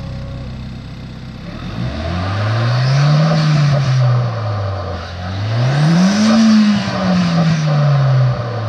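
Hyundai Veloster Turbo's 1.6-litre turbocharged four-cylinder, breathing through a short ram cone-filter intake, idling and then revved twice. The second rev goes higher than the first, and each time the engine falls back to idle.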